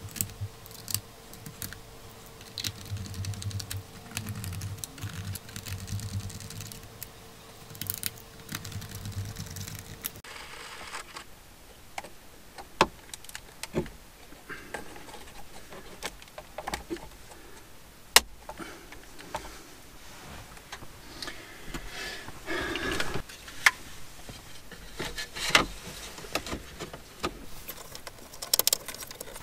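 Clicks, taps and light rattles of a VW Touareg instrument cluster's hard plastic housing being handled and clipped back together, then fitted into the dashboard with its connector plugged in. A faint steady hum runs under the first ten seconds.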